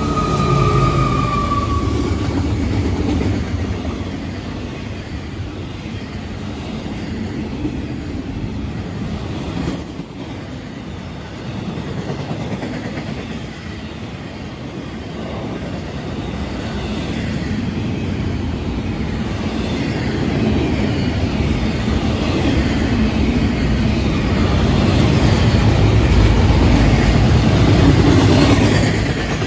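A freight train passes close by. The trailing FEC GE ES44C4 diesel locomotive rumbles past as the tail of a horn fades out in the first two seconds. Then intermodal container and trailer cars roll by with wheels clacking on the rails, dipping a little and growing loudest near the end.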